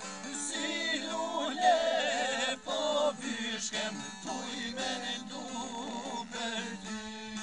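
Men singing an Albanian folk song with long-necked plucked lutes, the voice wavering and bending in pitch over a steady low drone note.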